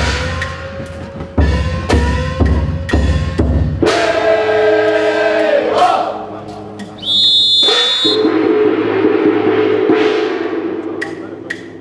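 Nagasaki Kunchi ship-float team at work: a drum beating steadily, the pullers' shouted calls, and a sharp whistle blast about seven seconds in, followed by a long held call.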